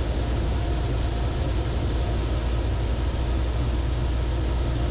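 Zenith CH 650 light sport aircraft's engine and propeller droning steadily in the cabin, throttled back for the descent from the downwind leg.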